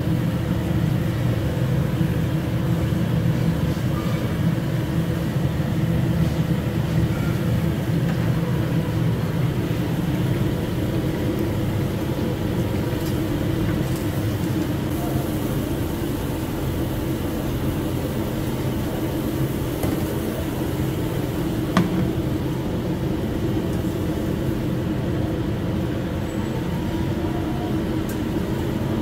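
Steady low mechanical drone of commercial kitchen ventilation or machinery, with one sharp knock about three-quarters of the way through.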